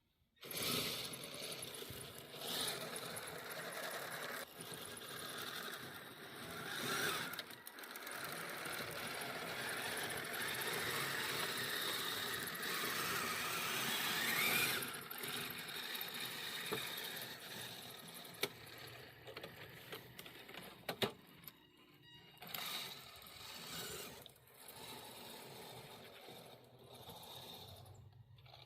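Kyosho Blizzard RC snow tractor with metal tracks running: a steady mechanical whir from the drive with rapid clicking of the metal track links. It starts suddenly under a second in, rises and falls with the throttle, and is quieter and broken up by short pauses in the last third.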